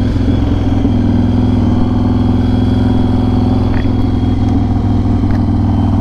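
Yamaha Raider cruiser's big V-twin engine running steadily at an even road speed, heard from the rider's seat.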